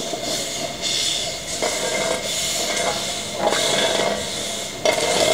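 Steam tank locomotive No. 473, an LB&SCR E4, moving slowly through the yard with a steady hiss of steam that swells and fades.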